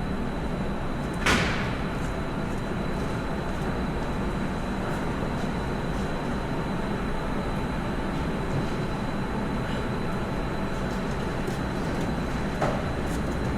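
Steady low rumbling background noise, with a sharp click about a second in and another near the end.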